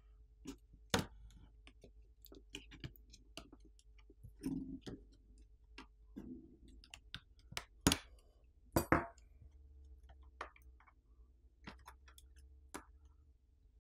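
Scattered small clicks and taps from handling a smartphone's internal parts as its motherboard is lifted out of the frame by hand, the sharpest clicks about a second in and again around eight and nine seconds in.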